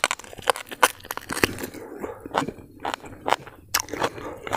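A person chewing a mouthful of mutton curry and rice, with irregular wet mouth clicks, lip smacks and crunches.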